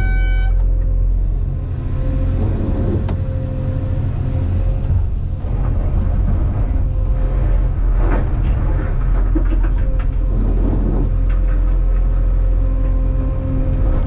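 Cat 390F excavator heard from inside its cab: the diesel engine running steadily while the hydraulics swing the machine and drive the bucket into blasted rock, with several knocks and scrapes of rock against the bucket. A short horn beep ends just after the start.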